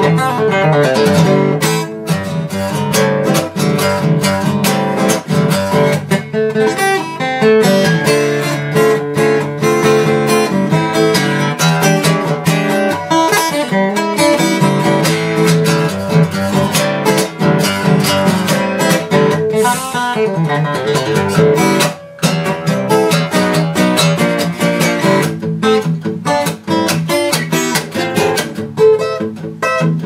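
Acoustic guitar played with a pick in an instrumental break, with no singing: a continuous run of picked notes and strummed chords.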